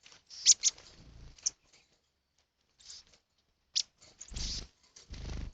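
Wild birds calling: short, sharp, high chirps, each sliding down in pitch, a quick pair about half a second in and single ones later. Near the end come two brief bursts of low rumbling noise.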